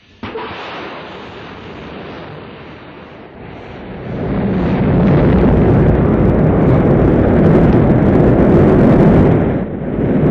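Rocket engines igniting and roaring at liftoff: a sudden loud onset, then a deeper, louder rumble building from about four seconds in, with a brief dip near the end.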